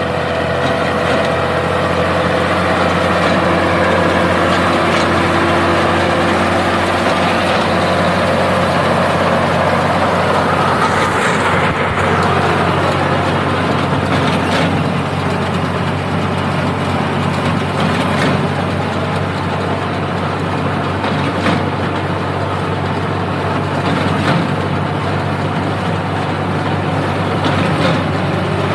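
Tractor engine running steadily while driving a front-mounted reaper binder cutting wheat, with a sharp clack every few seconds in the second half.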